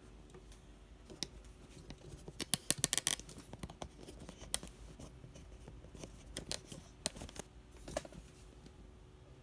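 Computer mouse clicks, sharp and scattered, with a quick run of clicks about two to three seconds in and a few more near the end.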